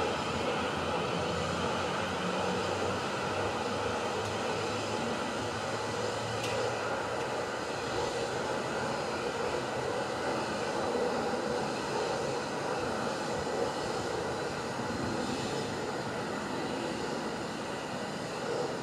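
Electric multiple-unit passenger train running by: steady noise of wheels on rail at a constant level, with no horn and no sharp knocks.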